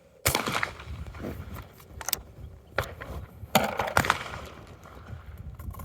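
A 12-gauge TriStar Setter S/T over-and-under shotgun fires once from the top barrel about a quarter second in, following the call for a trap target. Several sharp clicks and knocks come after it, the loudest near the middle.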